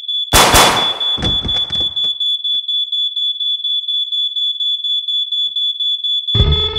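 A gunshot about a third of a second in, followed by a few fainter cracks over the next second and a half, over a steady high-pitched electronic alarm tone that pulses about four times a second. Music with guitar comes in near the end.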